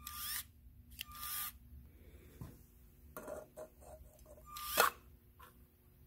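LEGO Spike Prime motor driving the robot arm's claw in three short runs of a second or less, with small plastic clicks and knocks between them as the claw closes and grips a cup. The arm is programmed to grip while its touch sensor is held.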